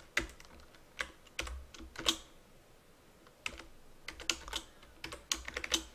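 Computer keyboard keys pressed in scattered single strokes, a pause of about a second, then quicker runs of keystrokes near the end.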